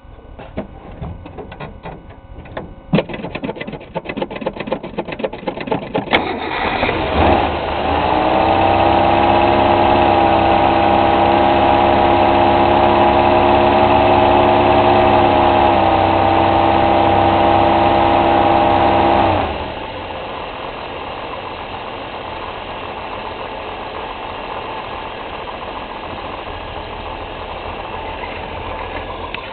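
1962 Ford Falcon's 200 cubic inch straight-six on a cold start, cranking over on the starter and catching about six seconds in. It runs at a steady fast idle, then drops to a lower, quieter idle about two-thirds of the way through.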